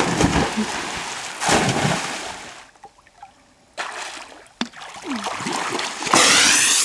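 Two people jumping feet-first into a swimming pool one after the other: a splash at the start and a second about a second and a half in, then water sloshing as they swim. Near the end comes a louder rush of water as one hauls himself out at the pool edge.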